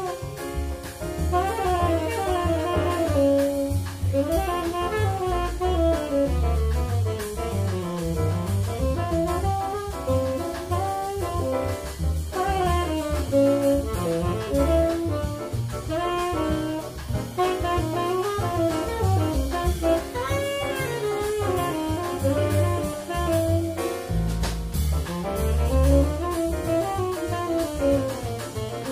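Live jazz quintet with a saxophone solo in quick lines that run up and down, over double bass, piano and a drum kit with cymbals.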